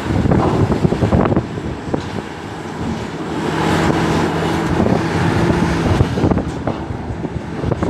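Large hydraulic excavator's diesel engine working, with wind buffeting the microphone. A steady engine note comes through in the middle.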